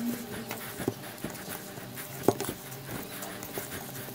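Hands squishing and kneading mashed boiled potato with breadcrumbs on a plate, in soft irregular strokes with small clicks. There is one sharp, louder knock against the plate a little over two seconds in.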